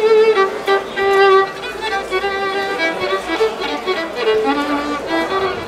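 Solo violin played with vibrato: a melody of held notes, one after another.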